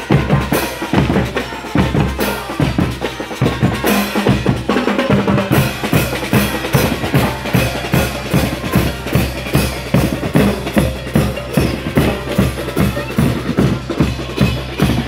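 Marching band drum line playing: bass drums, snare drums and cymbals beating a fast, steady rhythm.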